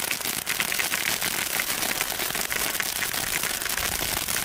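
Fish-shaped novelty firework fountain spraying sparks from its mouth: a steady hiss with dense crackling pops from the crackling stars throughout.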